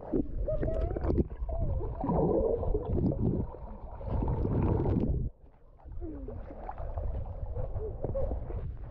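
Swimming-pool water churning and splashing right against a camera moving in the water. It is loudest in two stretches and drops off suddenly about five seconds in before picking up again more softly.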